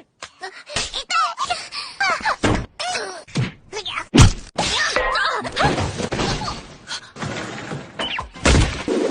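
A quick montage of short anime-style sound effects played back to back: whacks and hits mixed with sliding, squeaky pitch glides, with the loudest hit about four seconds in.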